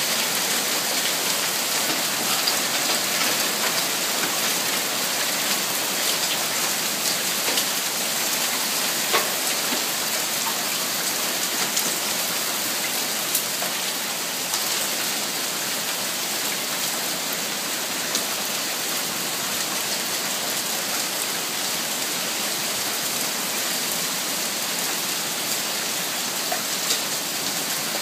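Heavy fall of ice pellets (small hail) pelting the ground, parked cars and a fence: a steady, dense hiss with scattered sharper ticks of single pellets striking.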